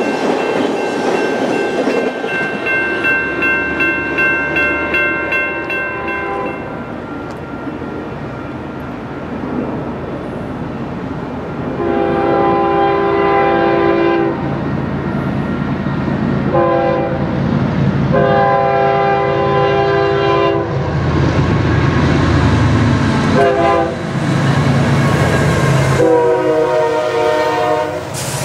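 Passenger train cars rolling past with wheel noise while a grade-crossing bell rings. Then approaching Union Pacific diesel freight locomotives sound their horn in five blasts (long, short, long, short, long), with the engines' rumble growing as the lead units pass near the end.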